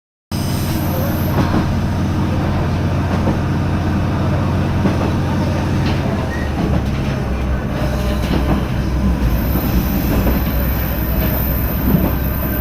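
Koumi Line diesel railcar running, heard from inside at the front of the car: a steady low drone of the engine and running gear, which shifts in pitch about six seconds in. A thin high whine joins it about nine seconds in.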